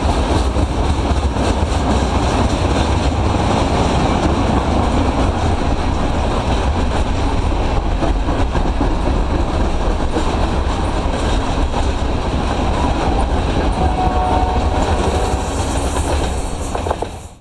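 Freight cars rolling past on the rails: a steady, loud rumble of steel wheels with clicking over the rail. A faint high tone rises out of it near the end, then the sound fades out.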